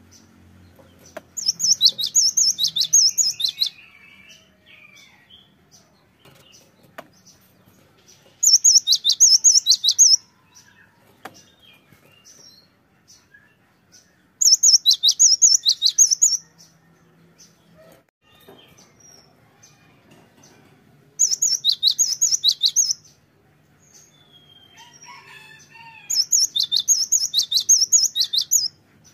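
Cinereous tit (gelatik batu) singing in five bursts, each about two seconds of quickly repeated bright, ringing notes, with a few soft chirps in the pauses between.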